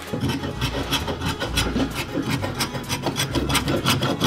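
A large spoke shave being pushed and pulled along a white oak blank, its blade shaving the wood in quick, repeated scraping strokes.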